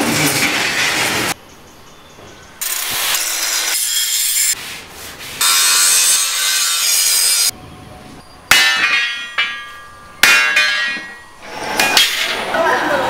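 A string of metalworking sounds joined by abrupt cuts. An angle grinder cuts steel in a loud, steady stretch. Two sharp metal clangs each ring on afterwards, and near the end there is rubbing.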